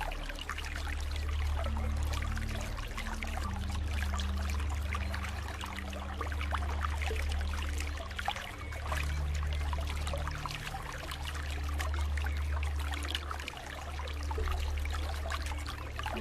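Running water trickling and splashing steadily, over a low drone of sustained tones that shift in pitch every few seconds.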